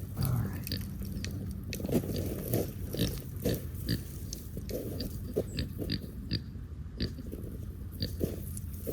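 Kunekune pig grunting over and over in short grunts, about two a second, with sharp little clicks between them.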